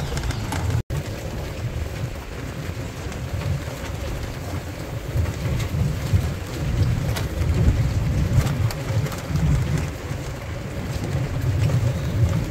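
Open safari vehicle driving along a bumpy dirt jungle track: a low, uneven rumble of engine and wind noise, with occasional light rattles.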